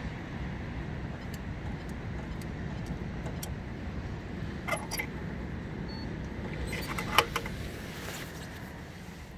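Steady low rumble of a running car, with a couple of small clicks about five seconds in and a sharp click just after seven seconds as the receipt and card are taken from a car-wash payment terminal.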